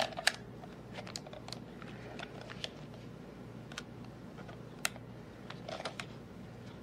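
Irregular small plastic clicks and taps of a camcorder being handled, with a quick cluster of clicks near the end, over a faint steady hum.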